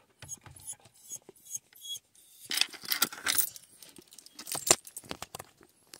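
Light metallic jingling and clicking in short bursts, thickest between about two and a half and three and a half seconds in, with a sharp click near five seconds.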